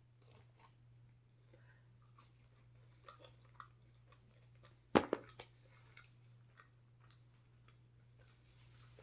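Faint chewing of fries, with small scattered mouth clicks and one sharp click about five seconds in, the loudest sound, followed by two smaller ones. A low steady hum runs underneath.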